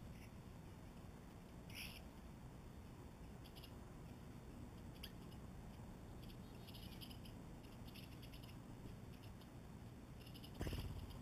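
Faint outdoor ambience with scattered short, high chirps from small birds at a ground feeder, and a brief louder flutter near the end.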